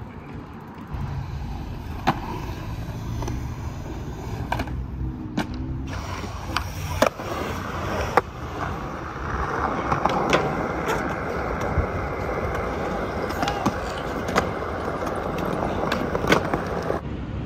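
Skateboard wheels rolling over concrete, with a series of sharp clacks from the board striking the ground.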